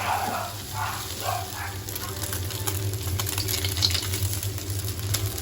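Chicken pieces stir-frying with dried chilies in a hot pan: steady sizzling, with light scraping and tapping as it is stirred, over a steady low hum.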